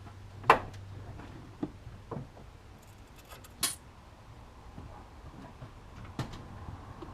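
A few separate sharp knocks and clicks, about five in seven seconds, the sharpest about three and a half seconds in, over a faint steady hum.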